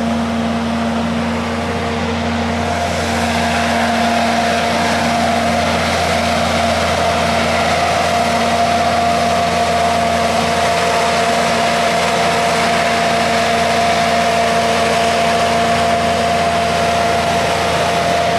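A vehicle engine idling steadily: a constant hum with a few steady tones and no change in speed.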